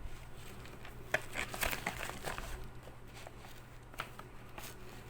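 Packaging crinkling and rustling as it is handled, in a cluster of short crackles in the first half and one sharper click near the end.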